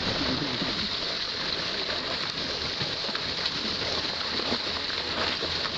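Steady rushing of water and wind from a boat moving through the sea, with dolphins riding alongside the hull.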